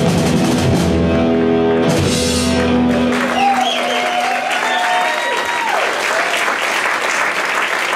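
A live rock band ends the song with guitar, keyboards and drums sustaining a final chord that stops about three seconds in. The audience then applauds and cheers, with a few shouted whoops sliding up and down in pitch.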